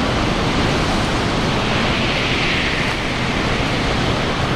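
A Shinkansen bullet train passing through the station at speed without stopping: a loud, steady rush of air and running noise. The hiss grows brighter about halfway through.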